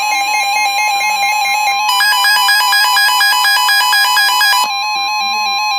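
Synthesized electronic alert tones: a rapid warbling pattern of alternating beeps over a steady high tone, which grows denser about two seconds in and thins out again near the end.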